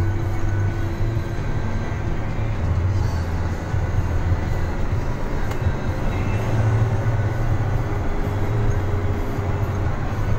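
Steady engine and tyre rumble heard inside a vehicle's cab while driving on a rough dirt road.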